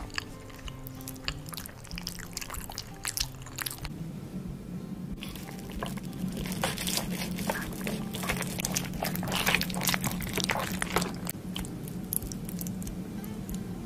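Close-miked eating sounds of cheesy baked lasagna: wet chewing and mouth clicks, then a knife and fork cutting through the soft, cheesy layers, with squishing and cutlery clicking against the baking dish. Quiet background music runs underneath.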